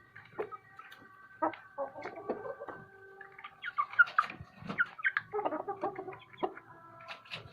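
Village chickens clucking, a few calls at first and a thick run of short, pitch-sliding calls in the middle.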